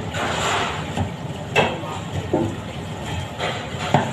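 Stainless steel containers and utensils knocking and clattering on a steel kitchen counter, a few separate sharp knocks, over a steady low mechanical hum.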